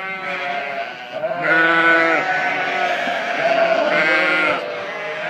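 A pen of ewes bleating together, several long calls overlapping, the loudest about a second and a half in and again near four seconds. The ewes are excited and calling for feed.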